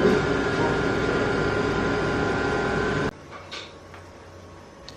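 Shop machinery running steadily, a hum with a high whine over it, which stops abruptly about three seconds in, leaving a quieter steady room noise.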